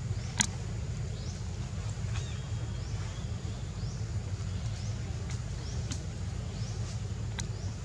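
Outdoor ambience: a steady low rumble, with faint, short, rising high chirps about every second and a few sharp clicks, the first about half a second in.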